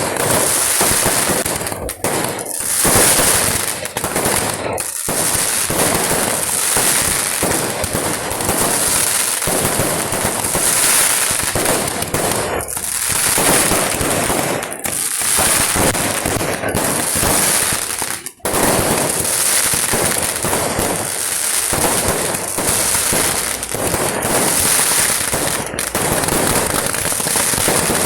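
Kerala church-feast fireworks (vedikettu): a dense, unbroken barrage of firecracker bursts and crackling, with a brief gap about eighteen seconds in.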